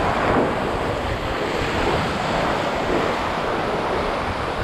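Ocean surf washing up the beach in a steady rush, with wind buffeting the microphone.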